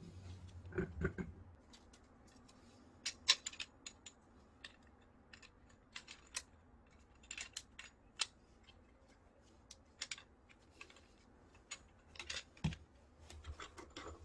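Irregular light clicks and taps of brass plumbing fittings and a corrugated stainless steel water hose being handled and screwed together by gloved hands, with a duller knock near the end.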